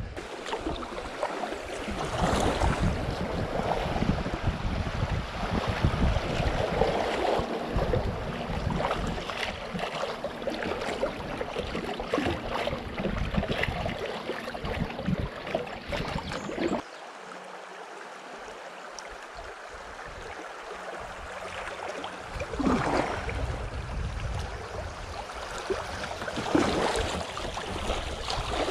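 River riffle water rushing and splashing around a kayak, with wind rumbling on the microphone until a little over halfway through. Paddle strokes splash near the end.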